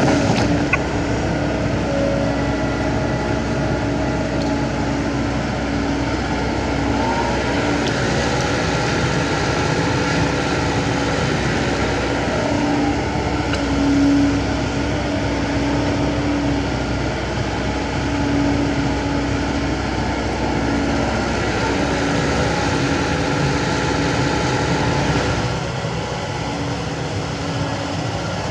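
Kobelco SK75 excavator's diesel engine running steadily under work, with a constant hum that eases slightly near the end.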